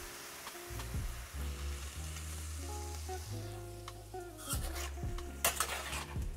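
Brown stir-fry sauce poured into a hot wok sizzles, the sizzle fading away over the first few seconds. Near the end a metal spatula scrapes and clatters against the wok as the food is stirred.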